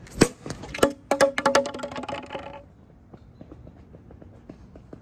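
Two sharp knocks, then a short burst of music with quick repeated notes that stops about two and a half seconds in.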